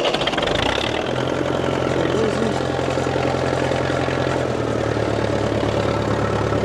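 Old International tractor's diesel engine just after starting: it catches, settles within the first second, then idles steadily.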